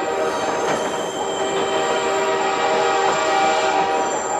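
Narrow-gauge mountain train running, the cars rumbling on the rails under several steady high-pitched tones that stop near the end.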